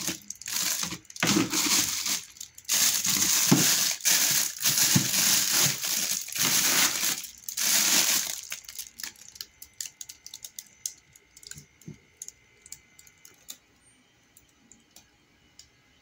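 Plastic bags crinkling and plastic juice bottles being shifted by hand in a packed freezer, in loud bursts for about the first eight seconds. After that, only scattered light clicks and taps.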